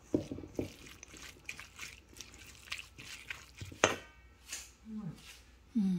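Spatula stirring and scraping a moist mix of chopped onion and ginger around a stainless steel bowl, a run of irregular scrapes and clicks, with one sharper click about four seconds in.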